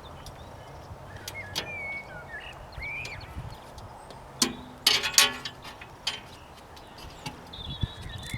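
Clicks and clinks from the wire clips and glass panes of a barn cloche being fitted together, loudest in a quick clatter about halfway through. Birds chirp faintly in the background.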